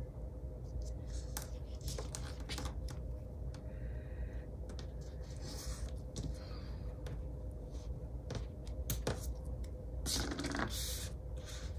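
Washi tape and paper being handled and pressed down on a planner page: scattered light taps and clicks with short paper rustles, and a longer, louder rustle about ten seconds in.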